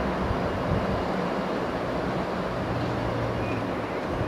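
Class 701 electric multiple unit standing at the platform, its onboard equipment giving a steady low hum over a constant rushing noise.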